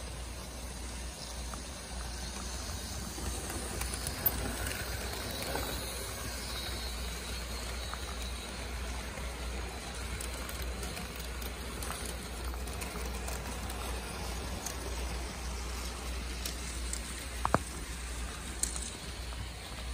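Märklin HO model passenger train running on its track: a steady whirring rush of small wheels and motor, with a sharp click about seventeen and a half seconds in.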